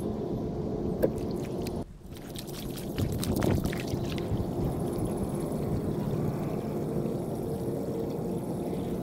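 Floodwater in a roadside gutter: a steady rushing, sloshing noise, with a few louder splashes around three seconds in.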